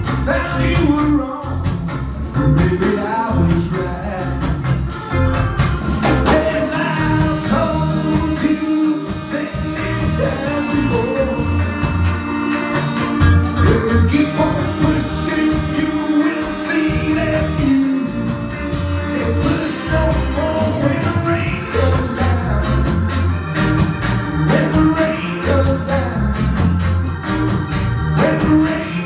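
Live band playing a song: a lead singer over keyboards, electric guitar and a horn section, with a steady beat.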